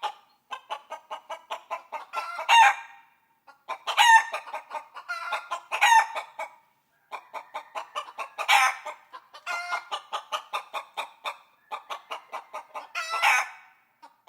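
Chickens clucking in quick runs of about five clucks a second, broken several times by a loud, drawn-out squawk, as in a hen's cackle.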